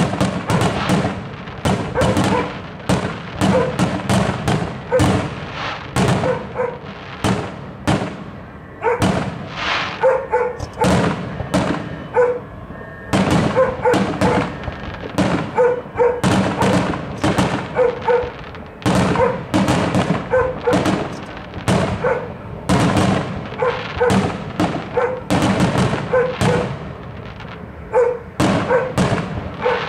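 Aerial fireworks shells bursting in a dense, continuous barrage: sharp bangs follow one another several times a second, with crackle between them.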